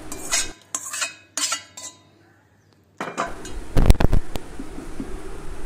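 A spoon scraping melted chocolate out of a steel pot into a steel mixer jar, with scattered scrapes and clinks. There is a short stretch of silence about two seconds in, then a few sharp knocks of the spoon against the jar about four seconds in.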